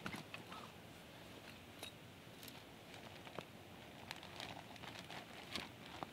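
Faint, scattered rustles and small clicks, a few every second, over a low hiss.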